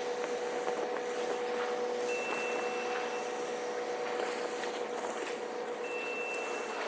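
A vehicle's electronic warning beeper sounds a long, steady beep of about a second, repeating about every four seconds, over a steady low engine hum and outdoor background noise.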